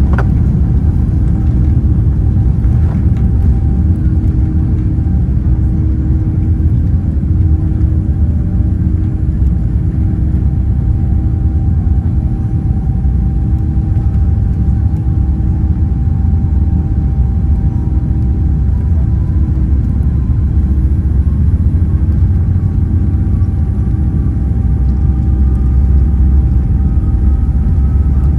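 Steady, loud rumble of a Boeing 787-10's engines and airflow heard inside the economy cabin, with a faint steady whine and a faint tone that slowly rises in pitch through the second half.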